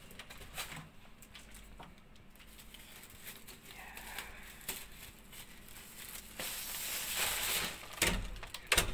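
A bag rustling and crinkling as it is picked up and handled, with two sharp knocks near the end.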